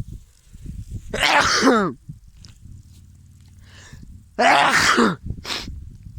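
A person sneezing twice, about three seconds apart; each sneeze is loud, with the voice sliding down in pitch.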